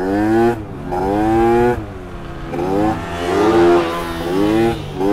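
Yamaha Aerox 70cc two-stroke scooter engine revving in about five throttle bursts, each rising in pitch. A second motorbike is heard running close alongside around three to four seconds in.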